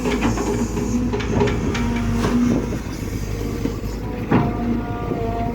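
Kobelco SK120 excavator's diesel engine running under load, with a whine from the hydraulics that comes and goes and several sharp metallic clanks, a loud one about four seconds in.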